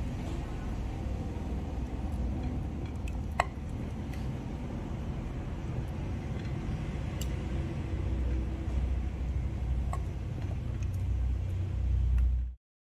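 A spoon stirring curd into pineapple pachadi in a cooking pot, with a few light clinks of the spoon against the pot over a steady low rumble. The sound cuts off suddenly near the end.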